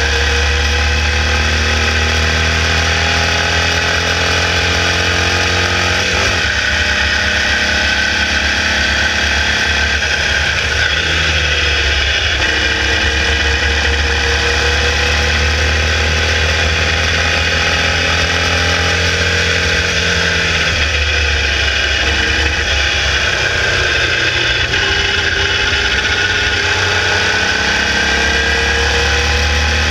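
A Formula Vee racing car's 1200cc Volkswagen air-cooled flat-four engine running hard, heard from a camera mounted on the car. The revs climb and then drop back several times.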